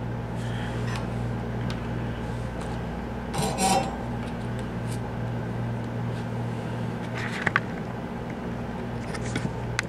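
Steady low electrical hum, with a few light clicks and taps from handling small metal parts and wire.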